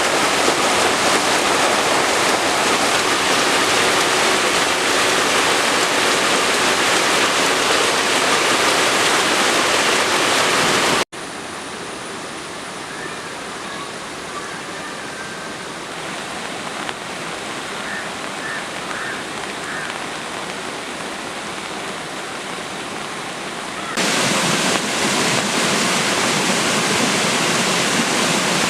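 Steady hiss of heavy rain. About a third of the way in it cuts abruptly to a quieter, softer rain with a few faint high chirps, and the heavy rain returns near the end.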